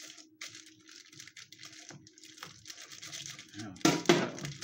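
Plastic bag of baby carrots crinkling and tearing as a large kitchen knife cuts it open on a cutting board, with louder rustling near the end as the bag is pulled open.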